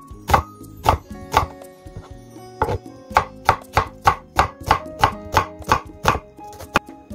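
Chef's knife slicing an onion on a wooden cutting board: crisp knocks of the blade on the board, about three a second, with a short pause about two seconds in.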